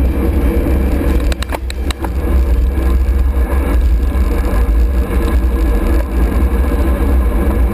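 Wind buffeting the microphone of a camera on a racing bicycle moving at speed, mixed with road noise, loud and steady. A few sharp clicks come about a second and a half in.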